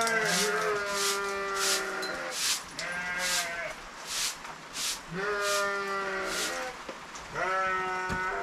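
Livestock bleating over and over: about four long calls with a wavering pitch, some overlapping, as hungry farm animals wait to be fed.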